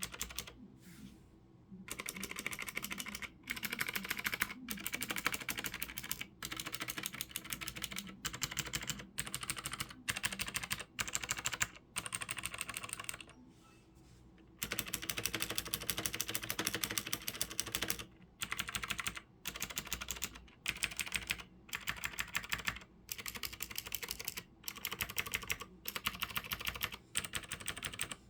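Fast typing on a Cherry G80-3000 mechanical keyboard with clicky Cherry MX Blue switches: rapid, dense keystroke clicks in long runs, broken by brief pauses, the longest about halfway through.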